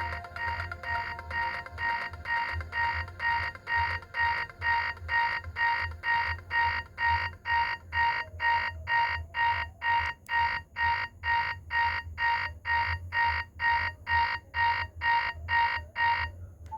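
BlackBerry Curve 9220 playing one of its built-in ringtones through its small speaker: an alarm-like beeping tone pulsing about two and a half times a second. It grows louder over the first few seconds and stops shortly before the end.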